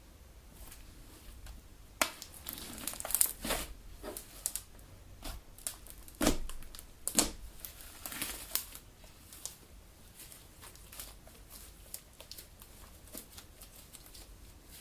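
Homemade Elmer's galaxy slime being kneaded and squeezed by hand, giving irregular crackles and pops. They are loudest and most frequent from about two to nine seconds in, then turn to sparse, soft clicks.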